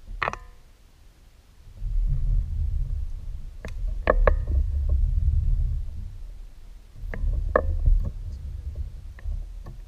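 A fishing kayak under way: a low rumble in two long stretches, with scattered clicks and knocks of gear against the hull, a ringing click right at the start and clusters of knocks about 4 s and 7 to 8 s in.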